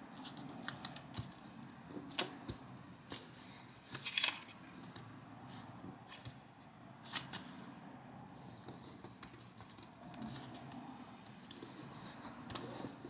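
Origami paper being folded and creased by hand on a tabletop: soft paper rustling with several sharp crackles and taps as the folds are pressed flat, the loudest a couple of seconds in, around four seconds in and around seven seconds in.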